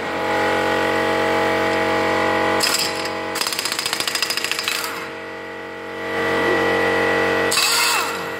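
Impact wrench working on a car's wheel bolts to take the wheel off: the motor whirs, then breaks into rapid hammering about a third of the way in and again near the end.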